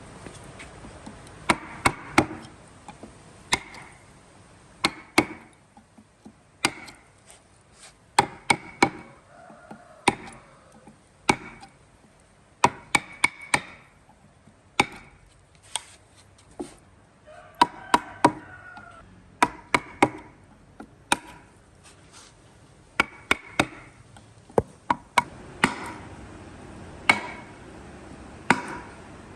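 Irregular series of sharp chopping strikes on wood, one to three a second, each with a short ring.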